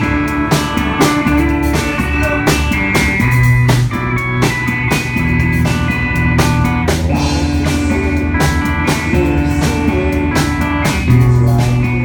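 Live rock band playing loud: amplified electric guitar over a drum kit keeping a steady beat, with held and bending guitar notes.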